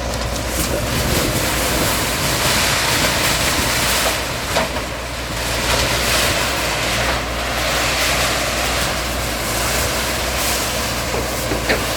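Bulldozer's diesel engine running steadily, with a dense rushing noise over it.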